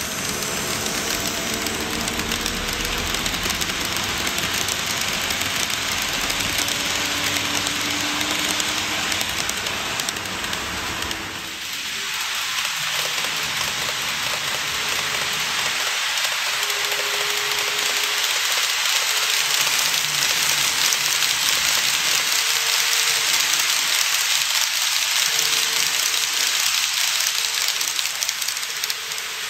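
KATO E235-1000 N-gauge model train running along its track: a steady rain-like hiss of wheels on rail with low rumble and a faint wavering motor hum. About 11 seconds in the rumble drops away, leaving the hiss and brief faint hum tones every couple of seconds.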